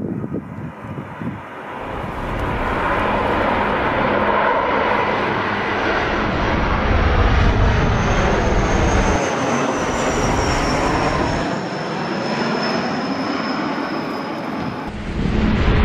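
Twin-engine turboprop airliner flying low overhead: a steady propeller and engine noise that swells up over the first two seconds, with a thin high whine slowly falling in pitch in the second half.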